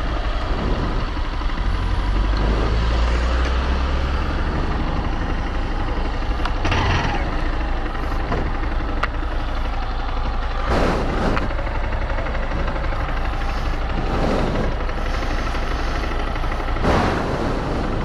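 Motorcycle engine running at low speed as the bike creeps along a gravel path, with several brief, louder rushes of noise over the steady engine sound.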